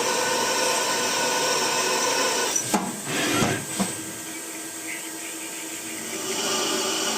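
CNC vertical machining centre running a machining program: a steady whine and hiss of the spindle and cutting. About three seconds in it breaks off with a few short knocks, runs quieter for a couple of seconds, then rises again near the end.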